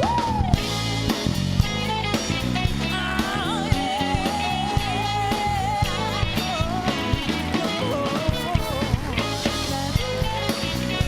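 A band playing a rock tune with guitar and drums, a wavering melody line over a steady beat.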